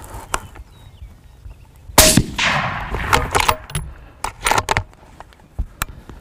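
A single rifle shot at a coyote about two seconds in, its report trailing off over a second or so, with scattered smaller clicks and knocks around it.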